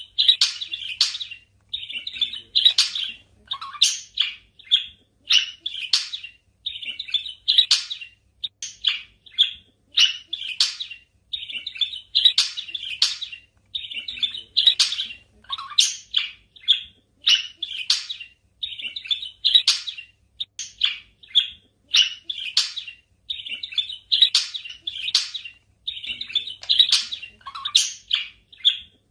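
Budgies chirping in quick runs of short, high chirps. The same sequence of calls recurs about every twelve seconds.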